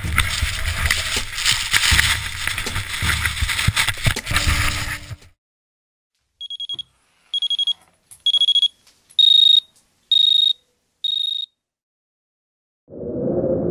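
A loud rushing noise with a low rumble for about five seconds, which cuts off abruptly. After a second of silence come six short, high electronic beeps about a second apart, each a little louder and higher than the one before. A low droning tone starts near the end.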